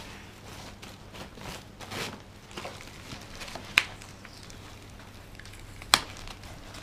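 Thin plastic wrapping sheet rustling and crinkling in short spells as it is pulled off by hand, with two sharp clicks, one just before the middle and one near the end.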